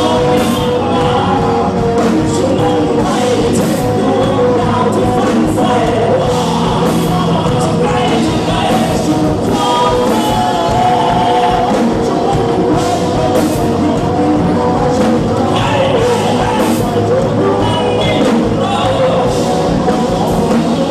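A live rock band playing a song with a lead singer, steady bass and drum and cymbal hits throughout.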